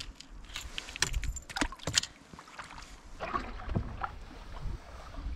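Gear being handled in an open canoe: a handful of sharp knocks and clicks in the first two seconds, then a softer wash of water against the hull.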